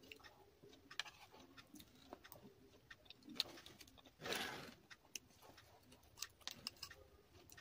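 Close-miked chewing and mouth sounds, with many small sharp clicks of a steel spoon and the eating. A little after four seconds in there is one louder rush of noise lasting about half a second.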